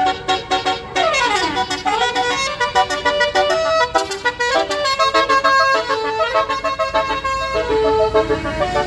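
A bus's telolet basuri musical air horn plays a fast tune of changing notes, with a falling glide about a second in.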